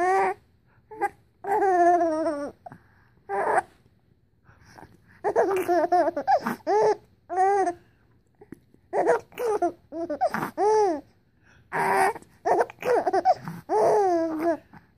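A 4-month-old baby laughing with his fingers in his mouth: high-pitched giggles in repeated bursts with short pauses between.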